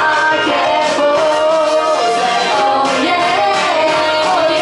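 A woman singing a pop song live into a handheld microphone, with sustained, gliding notes over music with a steady beat.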